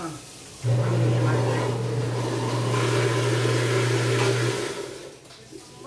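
An electric appliance running: a steady low hum with a rushing noise over it, switching on abruptly about half a second in and stopping after about four seconds.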